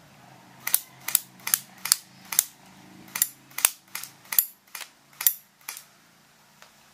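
A quick run of about a dozen sharp clicks, two or three a second, some in close pairs, stopping about a second before the end.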